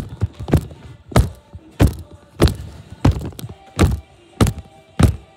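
Repeated heavy thuds, about one every two-thirds of a second, from a child's feet landing on the floor close to the microphone as she jumps and dances, with music from a TV underneath.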